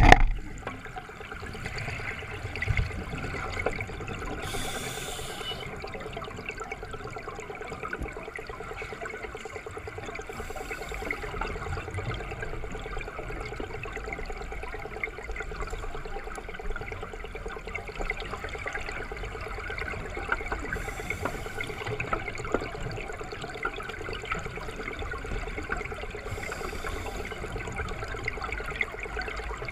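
Open-circuit scuba breathing heard under water through a camera housing: a short hissing breath from the regulator about every six seconds, four times, over a steady rush of water.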